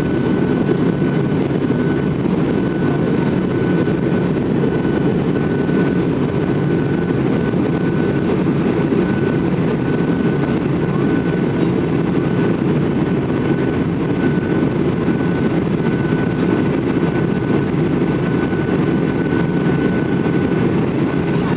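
Steady cabin noise of a Boeing 737 in flight, heard from a seat by the wing: an even, dense rumble of jet engines and rushing air, with a faint steady high whine on top.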